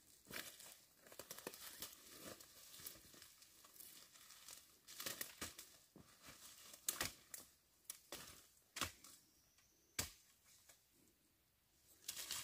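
Footsteps through dry cut brush: twigs and dead leaves crackling, rustling and snapping underfoot in an irregular run, with a few sharper snaps in the second half.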